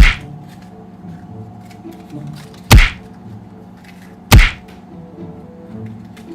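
Three loud, short thumps at the start, near the middle and about two-thirds of the way through, over quiet background music with a held tone.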